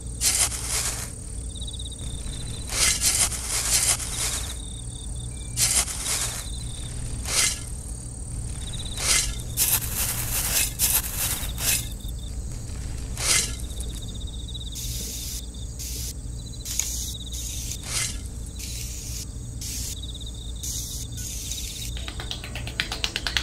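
Small metal hand trowel scooping, scraping and tipping sand in short strokes, often a second or two apart and bunched together around the middle, with softer scraping towards the end as the sand is smoothed. A steady faint high-pitched trill runs underneath.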